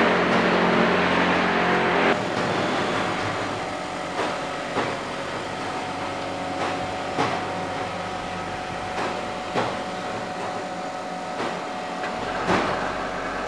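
Hydraulic block-making machinery running: a steady hum with several held tones, a louder rushing noise over the first two seconds, and occasional sharp knocks, some in pairs about half a second apart.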